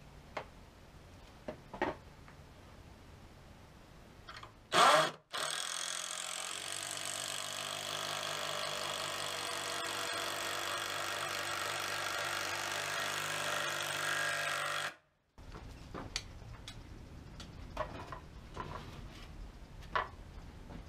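Cordless drill running at a steady speed for about ten seconds, then cutting off sharply, as it drives fasteners into oak pallet wood. A short loud knock comes just before it starts, and scattered light knocks follow after it stops.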